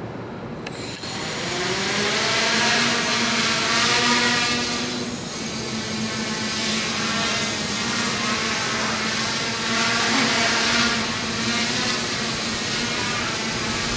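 Quadcopter's electric motors and propellers spinning up about a second in, then a steady buzzing whine as it lifts off and hovers low, the pitch wavering slightly as the motors adjust.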